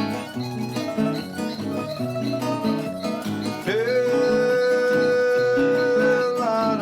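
Music: an acoustic guitar picking a lively paseo, joined about halfway through by a voice that slides up into one long held note.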